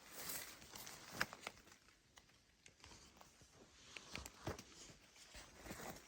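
Faint irregular rustling and crunching, with a few sharp snaps, one about a second in and others about four to four and a half seconds in.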